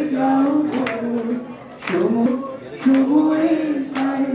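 A woman singing a Bengali song unaccompanied, holding long notes in phrases with short breaths between them.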